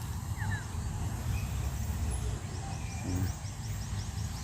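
Outdoor ambience: a steady low rumble with a bird chirping, first two short falling notes, then a rapid series of short high chirps through the second half.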